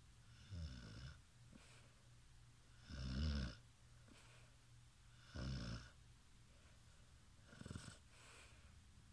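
Snoring in slow, regular snores about every two and a half seconds, four in all, the last one shorter than the others.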